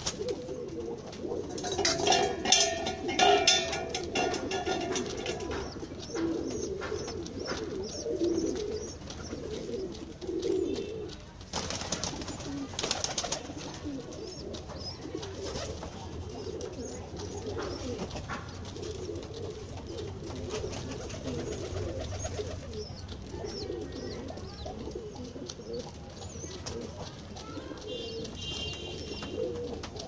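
Domestic pigeons cooing over and over, low and soft, in a wire-mesh coop. A louder, higher-pitched call comes a couple of seconds in, with another near the end, and a short burst of rustling noise comes about twelve seconds in.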